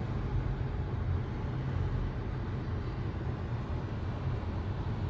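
Steady low car rumble heard from inside the cabin while driving: engine and road noise.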